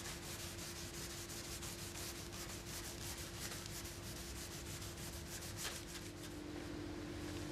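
Hand sanding of a guide-coated primer panel with a superfine soft-backed abrasive sponge: faint, rapid back-and-forth rubbing strokes, with a faint steady hum underneath.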